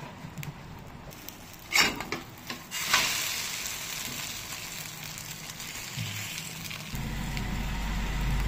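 Egg omelette frying on a cast-iron tawa: a steel spatula scrapes and knocks against the pan as the omelette is turned over, then the egg sizzles steadily. A low hum starts near the end.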